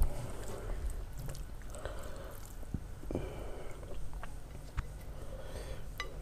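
Close-up eating sounds of rice and curry being eaten by hand: soft wet squishes of fingers mixing rice and gravy, with scattered small clicks and chewing. A single knock comes right at the start.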